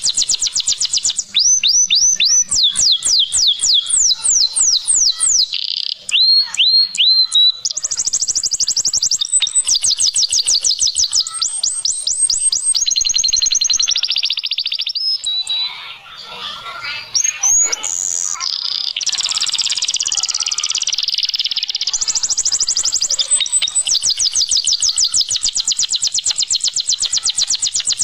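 Canary singing a continuous song of fast trills, each made of rapidly repeated sweeping notes, switching from one trill to another every few seconds. The song dips briefly about sixteen seconds in.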